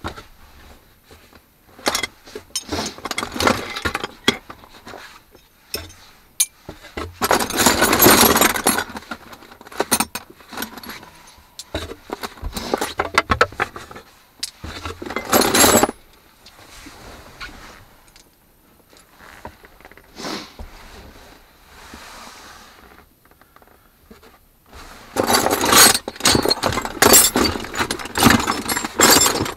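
Loose hand tools and metal spray cans clattering and clinking in a wooden crate, in irregular bursts of rattling with quiet gaps between.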